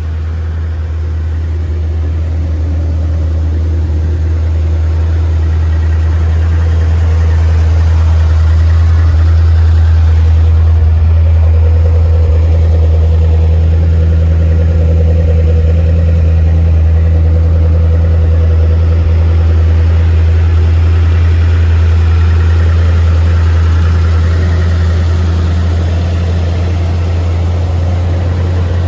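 1980 Chevrolet Corvette's small-block V8 idling steadily, its exhaust growing louder over the first several seconds and easing off a little near the end.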